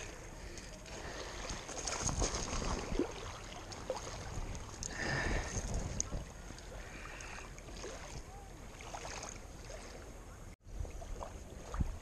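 Water splashing and lapping at the shoreline, with wind buffeting the microphone and rustling handling noise in irregular surges. The sound cuts out for an instant near the end.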